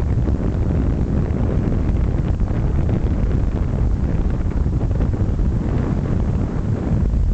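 Wind buffeting the microphone of a moving camera: a loud, steady low rumble.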